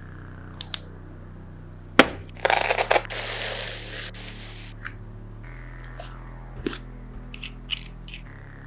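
Handling sounds from unboxing binoculars: a couple of light clicks, a sharp knock about two seconds in, then about two seconds of crinkling plastic wrap, and a run of small clicks and taps near the end as parts are fitted. A low music bed with held chords plays underneath.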